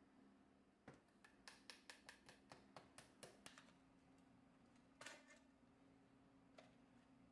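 Quick run of about a dozen light clicks, roughly five a second, from hands working the plastic body of a Polaroid SX-70 camera, then a single louder click about five seconds in.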